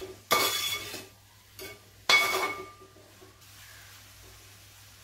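Metal slotted spoon scraping and clinking against a steel pan while stirring fruit and vermicelli in ghee. Two loud ringing scrapes come about a third of a second in and about two seconds in, with a smaller knock between; the rest is quiet.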